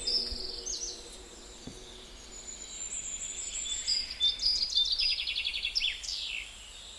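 Bird-like calls used as a Nanotyrannus sound effect: high-pitched chirps, a long faint whistle around the middle, then from about four seconds in a busy run of chirps, a fast trill and quick falling whistles, over a steady background hiss.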